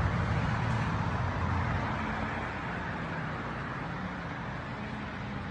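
Corvette engine running at a low, even pitch after a hard rev, slowly fading, with a broad rushing noise over it.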